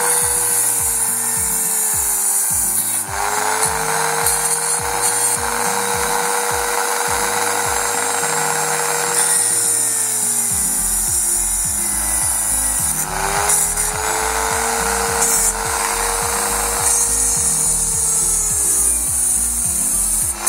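A small electric power tool cuts into the plastic of a car's dashboard air vent. Its motor pitch sags each time it bites and recovers between cuts, with several bursts of rasping cutting noise. Background music with a steady beat plays underneath.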